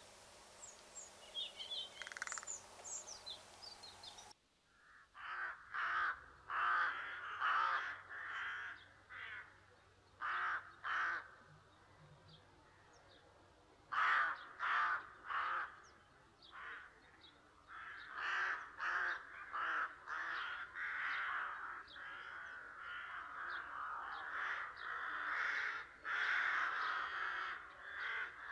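Crows cawing over and over, several calls in quick runs, sometimes overlapping. Before that, in the first few seconds, faint high chirps of small birds sound over a steady hiss, which stops abruptly.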